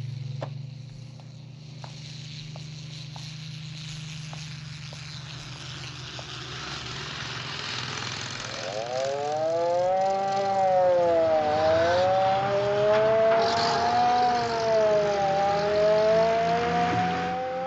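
Air raid siren starting up about halfway through, its pitch rising and then wailing slowly up and down: the air raid warning. Before it, a low hum fades and a hiss builds.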